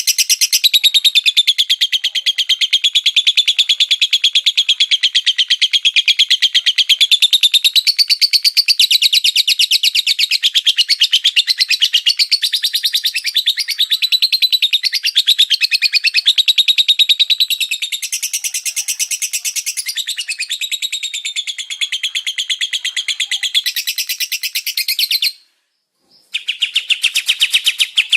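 Songbird singing a fast, unbroken stream of high chirping notes, many per second, shifting in pitch as it goes; it cuts out for about a second near the end, then resumes.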